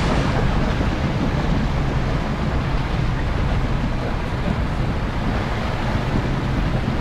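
Toyota LandCruiser 200 series 4WD driving slowly through a shallow creek crossing: steady low engine hum with water washing and splashing around the wheels. Wind buffets the microphone.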